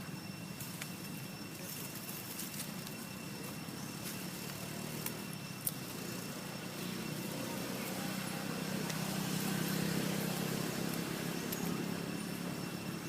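Road traffic: a vehicle's low rumble swells as it passes, loudest about ten seconds in, then fades, with two small clicks about five seconds in.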